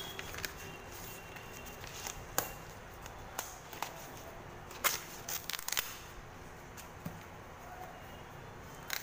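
A parcel being unwrapped by hand: scattered sharp crinkles and snaps as white wrapping is pulled off a cardboard box and the box is handled. The loudest snaps come about five seconds in.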